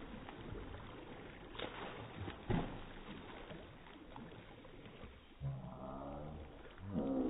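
Water splashing as a young child kicks and paddles across a swimming pool, with two sharper splashes about a second and a half and two and a half seconds in. A voice sounds briefly about five and a half seconds in and again near the end.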